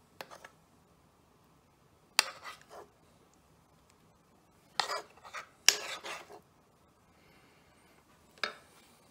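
Metal spoon clinking and scraping against a frying pan and a ceramic bowl while spooning pesto sauce over pasta, in about five short bursts of clinks.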